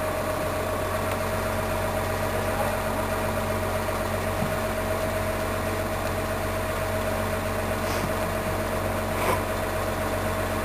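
Diesel engine of a large mobile crane running steadily, a constant whine over a low hum, with two faint knocks near the end.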